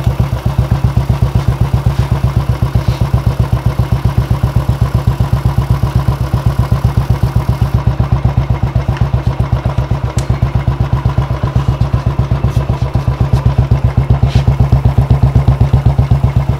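Royal Enfield Classic 350's single-cylinder four-stroke engine running at idle, a steady, even thump of exhaust beats.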